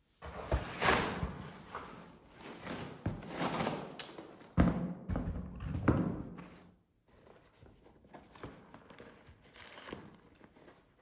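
Hands handling packaging and unboxed items: rustling and scraping, broken by several sharp knocks as things are set down or bumped, with the rustling fainter in the last few seconds.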